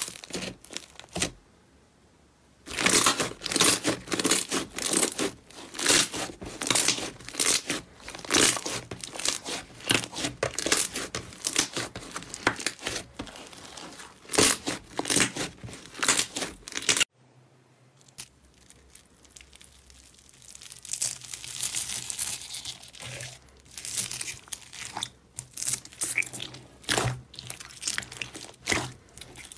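Hands squeezing, stretching and pressing slime: a dense run of sticky crackles, pops and squelches. There is a short lull about two seconds in and a sudden break just past halfway, after which it is quieter before the crackling builds again.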